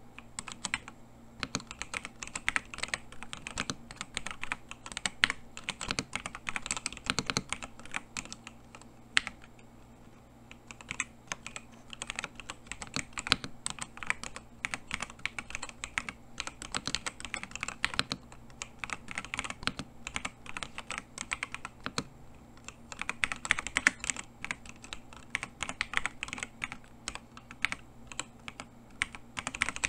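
Continuous typing on a JamesDonkey RS2 gasket-mount, hot-swap mechanical keyboard with linear switches (Huano on the main keys) and EVA foam sandwich: a quick, steady stream of keystroke clacks, with a short pause about ten seconds in.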